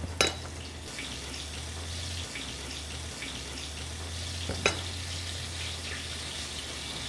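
Venison pieces sizzling steadily as they brown in hot bacon fat in a skillet, with two sharp clinks of a metal spoon against a ceramic bowl of flour.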